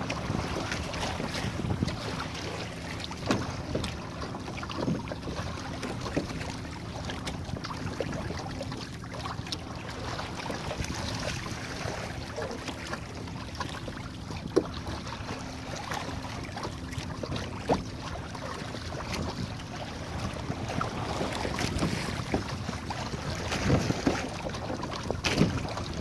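Water splashing and lapping against the hull of a Hobie sail kayak under way through a light chop, with wind rushing over the microphone. Sharper slaps stand out every few seconds as waves hit the hull.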